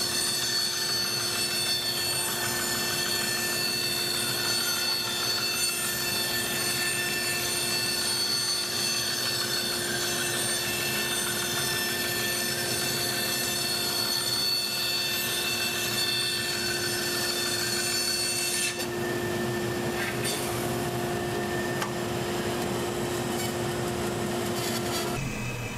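Laguna 1412 bandsaw cutting a large circle in plywood as the sheet is turned on the circle jig's pivot, with the dust collector running. The sound is steady. The cutting sound ends about 19 seconds in, and the steady machine hum stops near the end.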